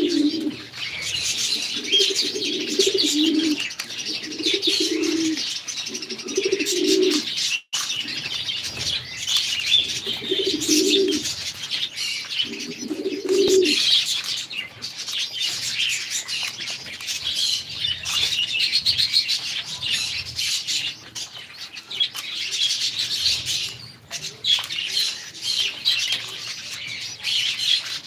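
Pigeons cooing in repeated low phrases over the constant high chirping of many small cage birds. The cooing stops about halfway through while the chirping goes on.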